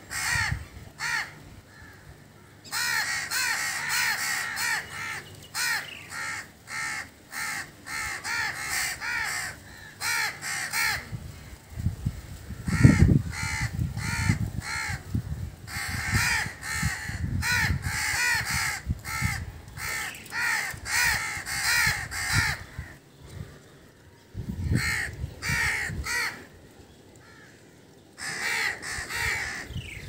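Crows cawing over and over, several harsh calls a second in long runs broken by short pauses. A few low thumps come through about 13 seconds in and again near 25 seconds.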